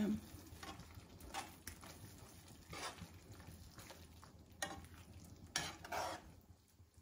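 A metal spoon stirs a thick cream sauce in a frying pan, with a handful of short scrapes and clinks of the spoon against the pan.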